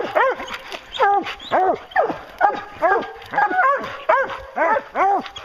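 Hounds barking over and over at the foot of a tree, about two loud bawling barks a second, more than one dog at once: the tree bark of hounds that have treed a bear.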